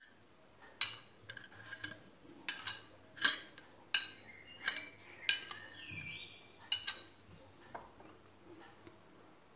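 Thin fluted aluminium foil tart tins set down one by one on a granite countertop, giving a string of sharp, light metallic clicks and clinks at an uneven pace.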